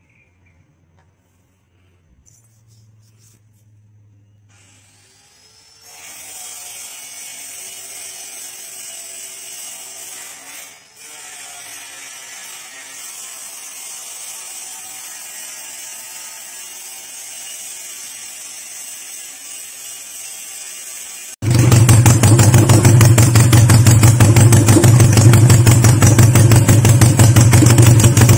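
Honda CB175's four-stroke parallel-twin engine running, very loud and close with a rapid even firing pulse, cutting in abruptly about two-thirds of the way in. Before that, a quieter steady mechanical whir, and the first few seconds are quiet.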